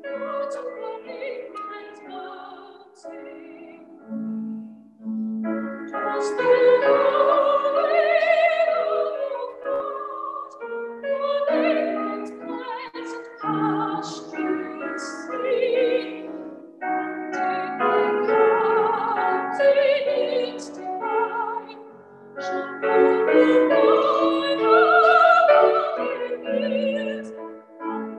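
A young woman singing a hymn solo in a trained classical voice with vibrato. The phrases are long and held, broken by short pauses for breath.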